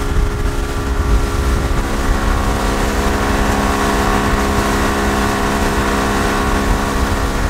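80-horsepower outboard motor running at steady cruising revs as the small boat planes along, with water and wind rushing past.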